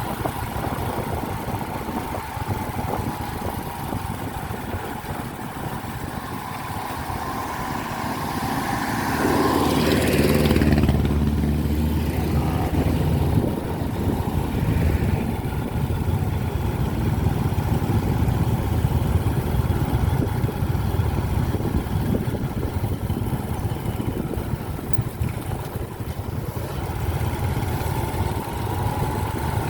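Motor vehicle engine running steadily, growing louder for a few seconds about ten seconds in.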